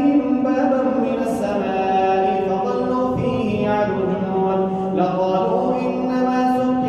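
A man's voice reciting the Quran in a slow, melodic chant, with long held notes that step up and down in pitch.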